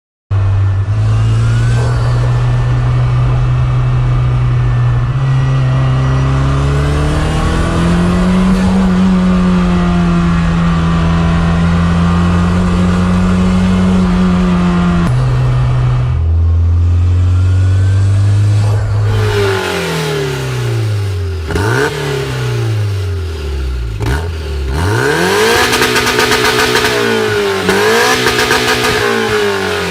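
Toyota MR2's 3S-GTE 2.0-litre turbocharged inline-four running at steady engine speed, stepping to a higher speed about a third of the way in and dropping back near the middle. From about two-thirds of the way through it is revved up and down repeatedly.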